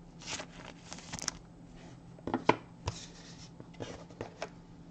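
Trading cards being handled at a table: light rustling and sliding with scattered small clicks and taps, one a little sharper about halfway through.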